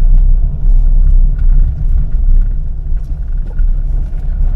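A car driving, heard from inside the cabin: a steady low rumble of engine and tyres.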